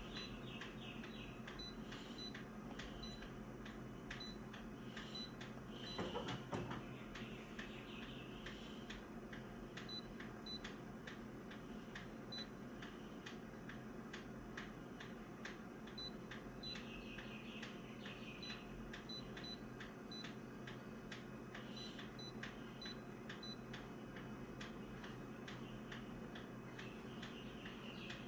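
Faint, regular ticking, a few ticks a second, with a brief louder rustle about six seconds in.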